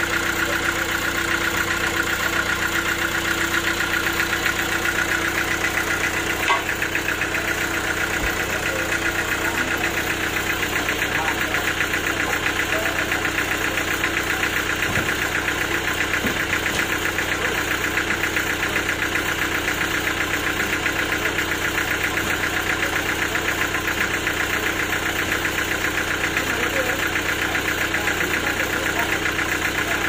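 Band sawmill machinery running steadily, a constant drone with a fast, even beat. There is one short sharp knock about six and a half seconds in.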